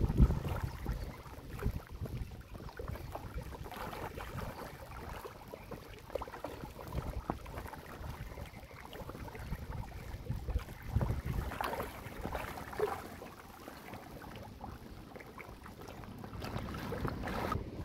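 Pangasius catfish thrashing and gulping at the water surface in a crowd: irregular splashing and slapping of water, loudest about the start.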